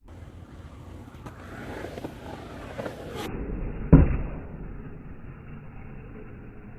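Skateboard rolling on pavement with light clicks, then one loud slap of the board about four seconds in, followed by more rolling.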